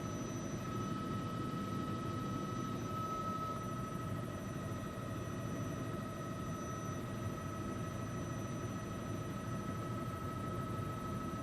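News helicopter in flight, heard from on board: a steady drone of rotor and turbine with a constant high whine over it.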